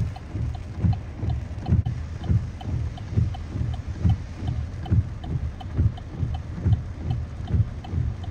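Heavy thunderstorm rain and runoff, with wind on the microphone and a regular low thumping about twice a second.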